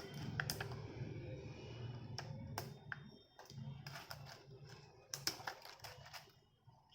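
Irregular light clicks and taps from hands handling a Dell Inspiron N5010 laptop, over a low steady hum.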